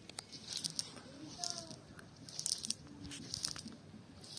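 Cast net being handled on grass as fish are picked out of the mesh: short bursts of rustling and crunching, about one or two a second.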